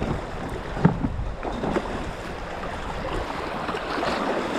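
Rushing water of a river rapid around an inflatable raft, with a few splashes and knocks; the sharpest knock comes about a second in. The water noise builds slightly toward the end.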